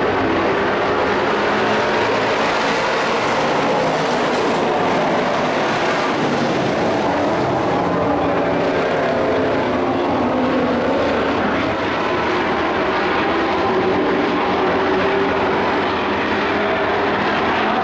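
A pack of dirt-track racing trucks running at speed, many engines blending into one loud, steady drone with pitches that rise and fall as the trucks go through the turns.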